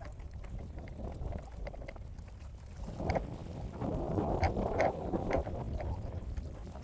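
Wind buffeting the microphone with choppy water splashing and lapping around a kayak, the splashing louder for a couple of seconds about halfway through, with a few small clicks and slaps.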